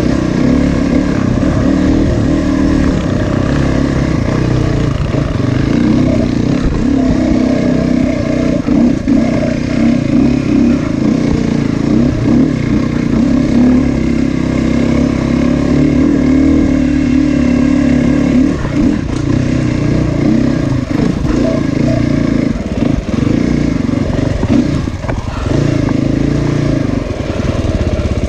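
Dirt bike engine running while being ridden along a trail, the revs rising and falling with the throttle.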